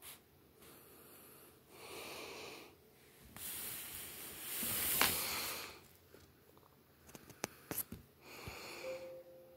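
A person breathing close to the microphone: several breathy exhalations about a second long, the longest and loudest in the middle. A few sharp clicks come near the end.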